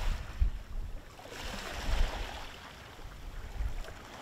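Water rushing and washing along the hull of a moving car ferry, swelling and easing, with wind buffeting the microphone in low gusts, strongest at the start.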